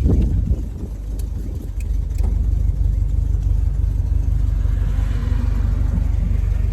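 A 1987 Toyota 4Runner's engine running with a steady low rumble, a little louder from about two and a half seconds in.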